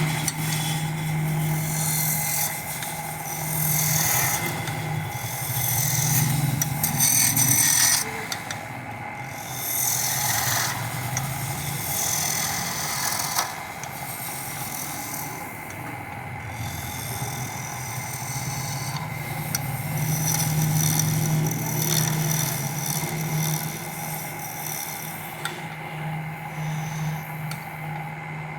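Wood lathe running with a steady motor hum while a tool works the spinning wood, a scraping hiss that comes and goes in passes of a few seconds.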